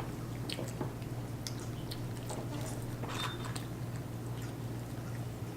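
Close-up chewing and eating sounds of children eating fries and chicken nuggets: scattered small wet clicks and smacks from their mouths.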